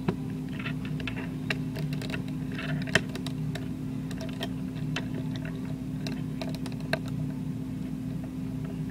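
Plastic Lego Bionicle parts clicking and rattling as they are handled and snapped together: irregular small clicks, one sharper about three seconds in, over a steady low hum.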